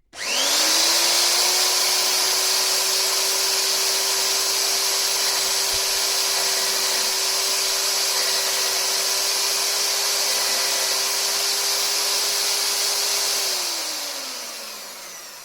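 Magnetic drill's motor whining up to speed and running steadily while it drills out a stripped head-bolt hole in a Ferguson TVO engine block, ready for a Helicoil thread insert. It is switched off near the end and the whine falls away as it spins down.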